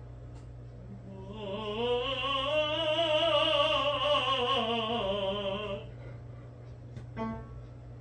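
A tenor singing a warmup phrase with vibrato: the pitch climbs for about two seconds, then comes back down, ending about six seconds in. A short pitched blip follows about a second later.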